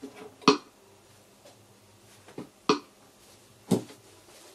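Control-panel buttons on a Casio CTK-541 keyboard being pressed: a few short, sharp plastic clicks, the loudest about half a second in and three more in the second half, as the keyboard is switched off.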